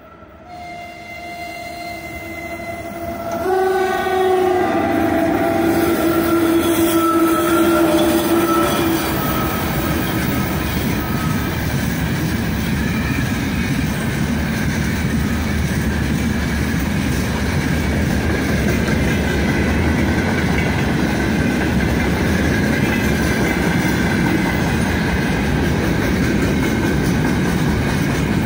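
Horn of a 3ES5K 'Ermak' electric locomotive sounding a chord of several tones as the locomotives approach, louder from about three seconds in and dropping slightly in pitch as they pass, fading by about nine seconds. A long freight train's wagons then roll past with a steady, loud wheel-on-rail rumble.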